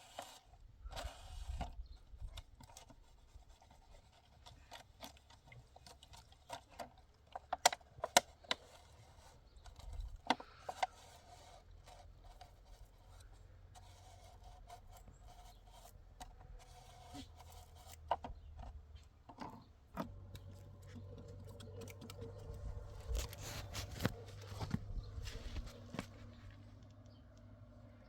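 Scattered sharp knocks and clicks with scraping and rubbing of handwork, the loudest knocks clustered around the middle. A low steady hum joins from about two-thirds of the way through.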